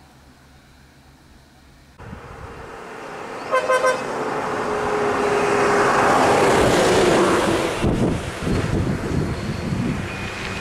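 A horn gives three short toots, then a diesel bus passes close by, its engine and road noise building to a peak and its engine note falling in pitch as it goes past.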